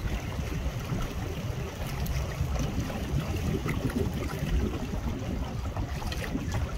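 Outdoor wind buffeting the microphone as an uneven low rumble, over the light splashing and lapping of small wind-driven waves.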